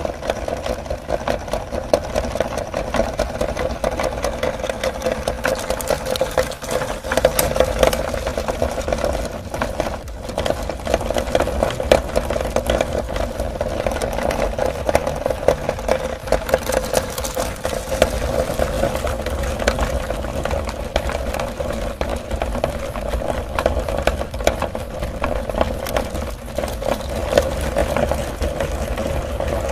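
Meat grinder running steadily while grinding a chocolate bar, a constant motor hum with a dense, rapid rattle of clicks as the chocolate is crushed.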